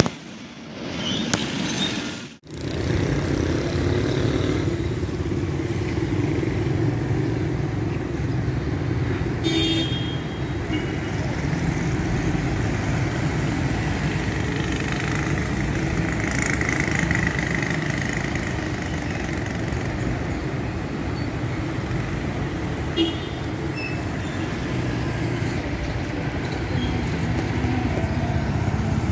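Steady road traffic: cars, minibuses and motorcycles passing, their engines and tyres making a continuous mixed noise, with a few brief higher sounds among it.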